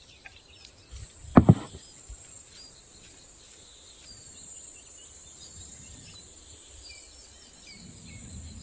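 Outdoor ambience of insects buzzing steadily with birds chirping now and then, broken by two sharp knocks in quick succession about a second and a half in.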